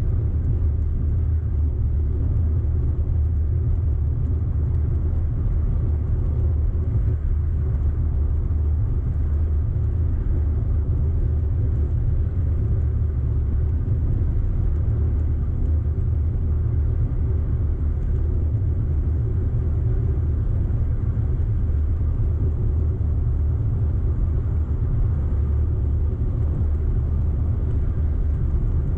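An Audi car being driven, its engine and tyres making a steady low rumble that holds unchanged throughout.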